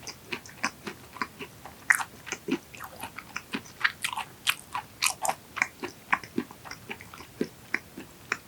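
Close-up chewing of raw large yellowtail sashimi, a fatty collar-cut piece: a steady run of short, wet, clicky chewing sounds, about two to three a second.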